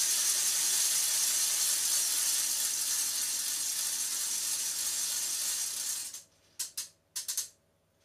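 3D-printed plastic ratchet noisemaker (a gragger) being swung round, its gear wheel clacking rapidly past a flexible board: a continuous rattle that fades slightly, breaks off about six seconds in, then returns as a few short bursts.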